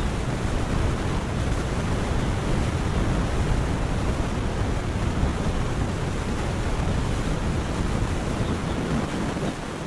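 Wind buffeting the microphone: a steady low rushing noise that eases slightly near the end.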